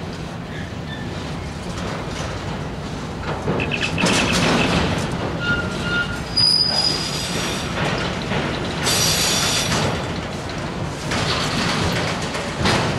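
Autorack freight cars rolling past, a steady rumble of steel wheels on rail. High-pitched wheel squeals come in from about three and a half seconds and again around nine seconds.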